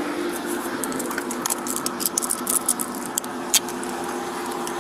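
Handcuffs being put on a person's wrists, with clothing rustling and a run of sharp metallic clicks, the loudest about three and a half seconds in, over a steady background hum.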